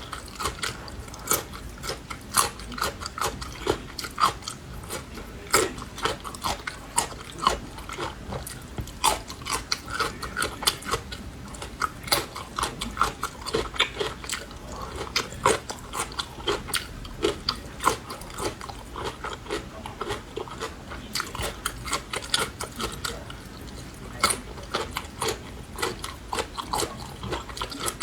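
Close-miked crunchy chewing of green Laba garlic, cloves pickled in vinegar: repeated bites and crisp crunches, several a second, going on without a break.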